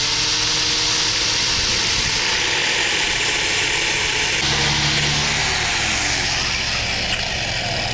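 Electric angle grinder with a green disc grinding down metal spacers clamped in a bench vise: a loud, steady whine with grinding hiss, its pitch dipping and recovering as the disc bites.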